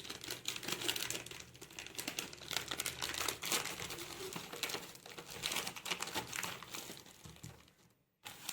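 Phone-case packaging crinkling and rustling as it is opened by hand: a dense run of crackles that thins out near the end, with one short burst after a brief silence.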